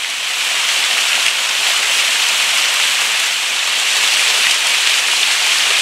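Steady rush and splash of a thin waterfall pouring down a rock face.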